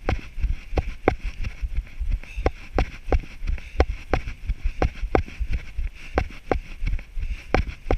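A runner's footfalls on mown grass, about three strides a second, each jolting the body-worn camera with a sharp thud, over a steady low rumble.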